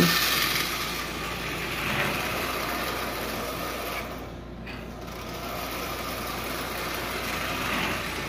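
Marx 999 toy steam locomotive's single-reduction electric motor whirring as it runs on three-rail tinplate track, quieter about halfway through and louder again near the end. It runs smoothly and evenly after decades in storage.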